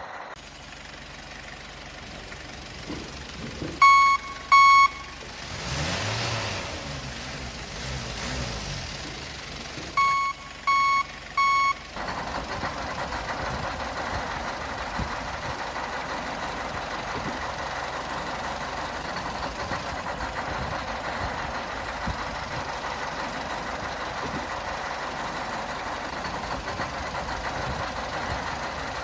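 Toy RC construction vehicles: loud electronic reversing-style beeps, twice about four seconds in and three times around ten seconds. Between them a motor whirs up and down, and from about twelve seconds a steady running noise sets in.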